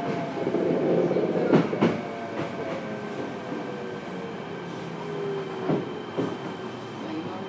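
Fukuoka City Subway 1000N series electric train heard from inside a passenger car, its motor whine falling slowly in pitch as the train slows, with a few sharp wheel clacks over rail joints.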